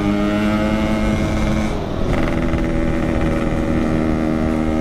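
Yamaha RX-King two-stroke single running under way through a 'packing power' aftermarket exhaust, very loud. Its note climbs slightly, breaks off briefly about two seconds in, then holds steady again.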